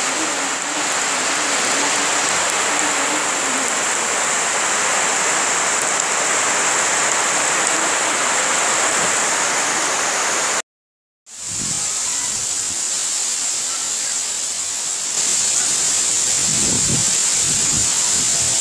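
Heavy storm rain pouring onto flooded ground and standing water, a dense steady hiss. There is a brief gap of silence about ten seconds in. Afterwards the rain goes on, and near the end low rumbling gusts of wind buffet the microphone.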